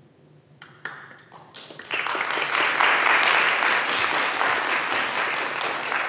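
Audience applause at the end of a dance performance: a few scattered claps at first, swelling into full, steady applause about two seconds in.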